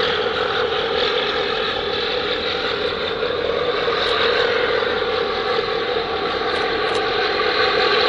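Steady mechanical drone of a large container ship's machinery as the ship passes close by.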